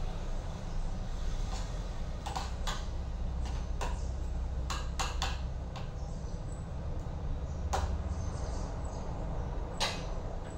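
A spoon clinking and scraping against a metal baking tray while a thick white sauce is spread in it, heard as scattered light clicks over a steady low hum.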